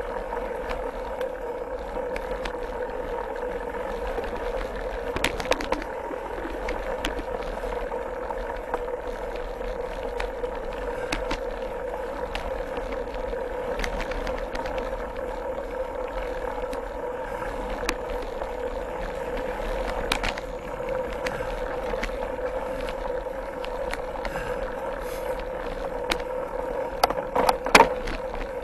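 Mountain bike ridden along a dirt forest trail: tyre and drivetrain noise over a steady hum, with scattered clicks and rattles from the bike over the ground, and a louder cluster of sharp knocks near the end.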